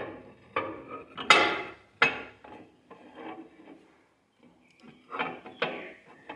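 Ceramic mugs clunking and scraping against each other and the microwave's turntable as they are set down and shifted into place, a string of separate knocks with the loudest about a second and a half in and another cluster near the end.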